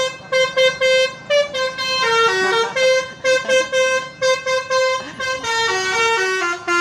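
Basuri telolet horn, a multi-tone musical bus horn, playing a quick tune of short beeping notes. Most notes repeat on one pitch, and twice the tune steps down through a few lower notes.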